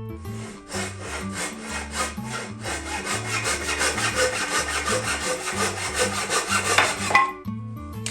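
Fast back-and-forth strokes of a tool working wood, about seven a second, starting just under a second in and stopping suddenly about seven seconds in, with background music under it.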